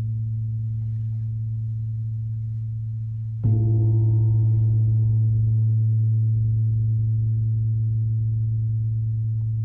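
A low-pitched struck metal percussion instrument rings with a steady low hum. About three and a half seconds in it is struck again: the ring jumps louder with brighter overtones, then slowly dies away.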